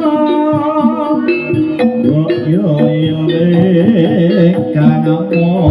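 Jaranan music played loud through a PA sound system, with sustained instrument tones and, from about two seconds in, a wavering sung melody.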